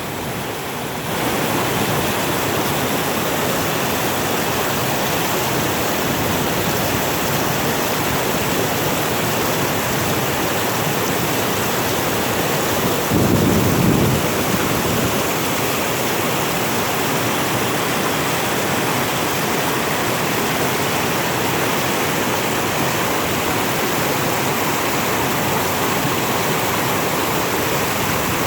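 Stream water rushing steadily, the flow swollen and strong after heavy overnight rain. A brief low rumble rises over it about halfway through.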